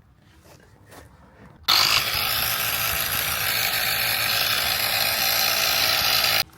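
Bosch EasyPump cordless inflator's small piston compressor starting up suddenly after a few faint clicks, running with a steady buzz for about five seconds, then cutting off abruptly, typical of its automatic stop at the set pressure.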